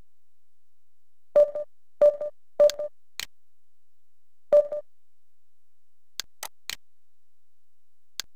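Short electronic rollover beeps from an e-learning interface, the same tone each time, sounding as the mouse pointer passes over on-screen images: four beeps in the first five seconds, one of them doubled. These are followed by a few faint clicks.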